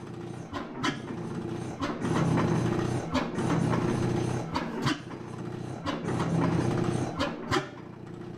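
Vintage Samson vertical twin-cylinder gas engine running, a chuffing engine beat overlaid with sharp mechanical clicks from its valve and ignition gear. The running swells and eases off every two to three seconds, in keeping with the hit-and-miss governing these engines used.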